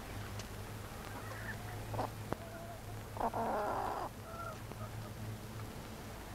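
Domestic chickens clucking in short calls, with one louder outburst about three seconds in.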